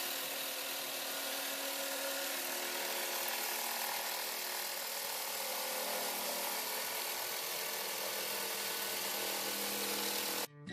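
Jigsaw running steadily as its blade cuts through a laminate flooring plank, a continuous motor whine with the rasp of the blade; it cuts off suddenly near the end.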